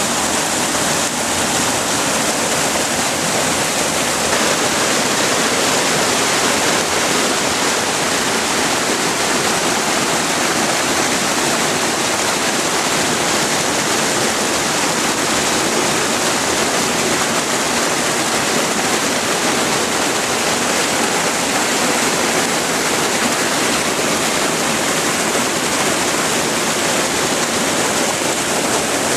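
Floodwater rushing past in a loud, steady, unbroken wash of water noise.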